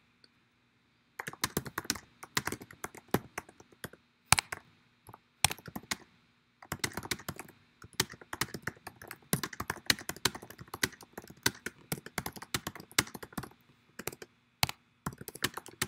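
Typing on a computer keyboard: rapid runs of key clicks in bursts, broken by short pauses, starting about a second in, with an occasional louder single key strike.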